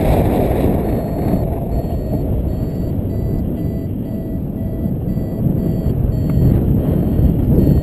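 Wind buffeting the microphone in flight. From about a second and a half in, a paragliding variometer beeps in short, even pulses, a little more than two a second. That steady beeping is the variometer's signal that the glider is climbing in rising air.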